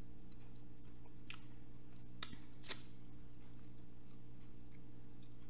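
A steady low electrical hum, with a few faint mouth clicks from chewing barbecue chicken wings close to the microphone.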